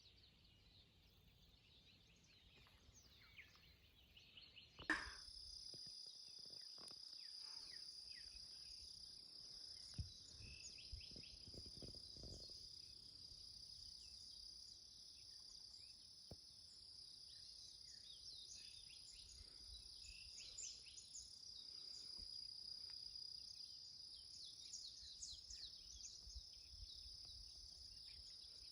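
Faint nature ambience: after a sharp click about five seconds in, a steady high-pitched insect drone sets in, with scattered faint bird chirps over it.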